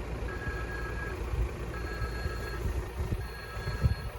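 Railway level-crossing warning signal sounding in repeated pulses, each just under a second long with a short gap, three times; it sounds while the barrier is down, warning that a train is approaching. A low rumble runs underneath.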